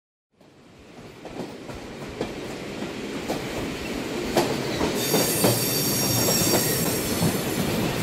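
A train running on rails, fading in from silence and growing louder, with irregular clacks of the wheels over rail joints. A high wheel squeal joins about halfway through.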